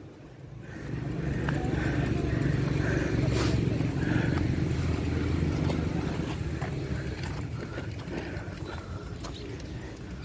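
A motor vehicle passing close by on the road: a low engine rumble that builds about a second in, holds for a few seconds and then slowly fades away.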